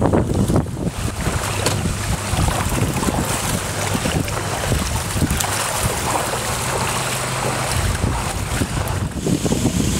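Wind buffeting the microphone over the low steady hum of a vehicle engine running in the floodwater.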